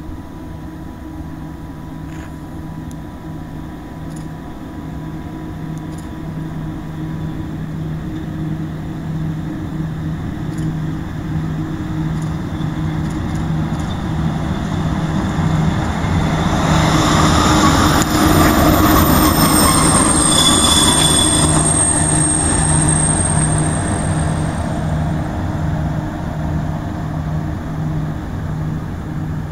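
DB electric locomotive running light through the station, with a low hum that pulses regularly. It grows louder as it passes close, about two-thirds of the way through, and high wheel squeal is heard at its nearest point.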